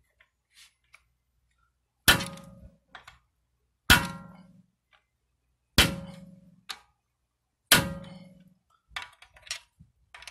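Hammer striking a steel center punch on the axle nut's collar of a 2013 Mini Cooper Countryman, driving the collar down to lock the nut: four sharp ringing metal strikes about two seconds apart, then a few lighter taps near the end.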